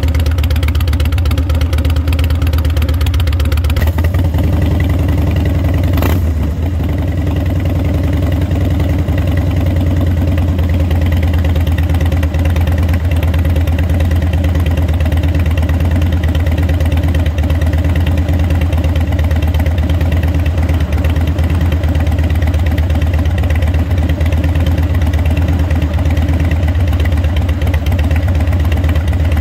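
Harley-Davidson Dyna Wide Glide's air-cooled V-twin idling steadily through Vance & Hines exhaust pipes, with a single short click about six seconds in.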